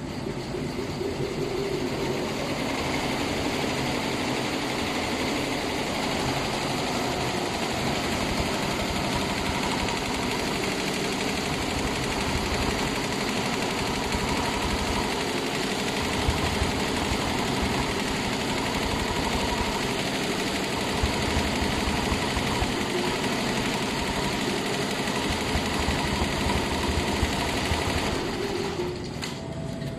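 Richpeace multi-head computerized quilting machine running, its row of needle heads stitching steadily at speed. The noise falls off near the end.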